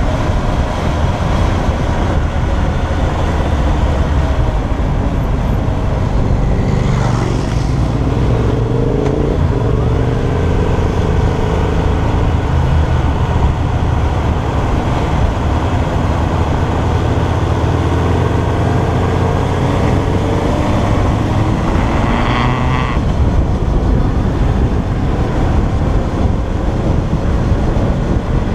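A motorcycle engine runs at moderate revs, about 4,000 rpm on the tachometer, under a steady rush of wind on the handlebar-mounted microphone. The engine note rises and falls twice.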